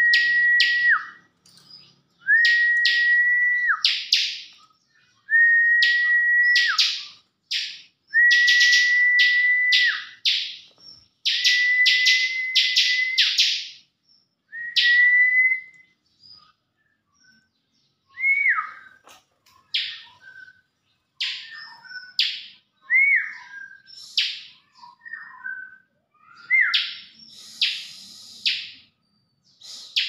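Bar-winged prinia (ciblek) calling in quick runs of sharp chirps. Through the first half a long level whistle of about a second and a half repeats roughly every two seconds, each ending in a short drop. After that the calls thin out into shorter, scattered notes and brief hooked whistles.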